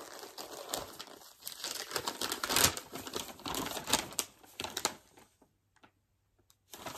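A plastic mailer bag crinkling and rustling as it is torn open and its contents pulled out, a run of sharp crackles that stops about five seconds in.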